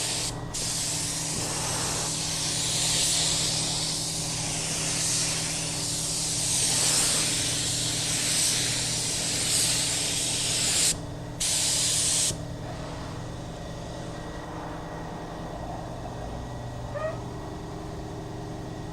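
Paint spray gun hissing as it sprays clear coat onto a plastic bumper, with a brief break about eleven seconds in and stopping about twelve seconds in. A steady low hum runs underneath.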